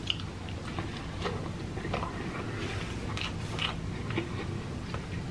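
Chewing a mouthful of cheeseburger, with soft mouth clicks and smacks at irregular intervals.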